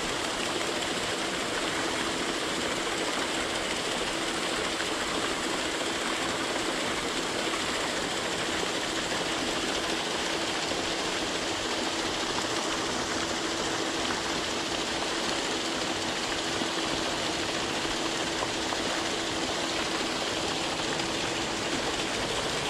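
Steady rushing noise with a faint steady hum underneath, cutting off suddenly at the end.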